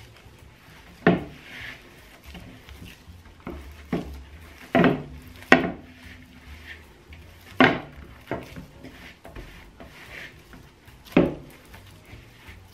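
Gloved hands mixing and kneading crumbly almond-flour cheese dough in a glass bowl. There is faint rubbing and six short, sharp knocks against the glass; the knock about halfway through is the loudest.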